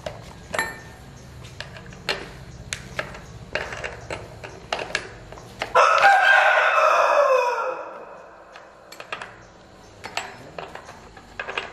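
A rooster crows once, a long call starting about six seconds in that drops in pitch as it ends. Around it come scattered light clicks and knocks from hands and tools working on a chainsaw.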